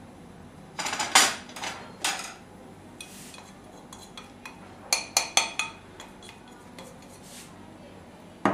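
A small metal spoon clinking and scraping against a ceramic dish as dry spices are tipped into a mixing bowl. A cluster of clinks comes about a second in, and a quick run of five or six clinks around five seconds in.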